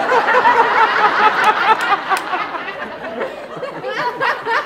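Comedy club audience laughing, loud at first and easing off, then a second wave of laughter swelling about four seconds in.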